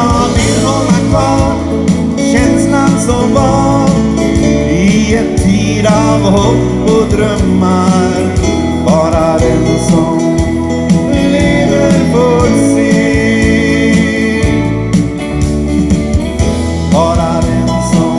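A live rock trio playing a song: electric guitar, electric bass and drum kit together, with a melody line that bends in pitch over a steady beat.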